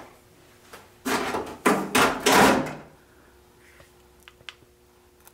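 A hard plastic RC truck body shell being handled and set aside, making two bursts of clattering, rustling noise in the first few seconds, followed by a few faint clicks.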